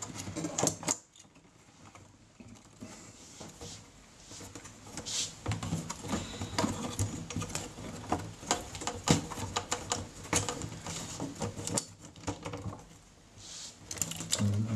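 Irregular clicks, taps and knocks of a Tascam M-06ST mixing console's metal casing being gripped and turned over on a table.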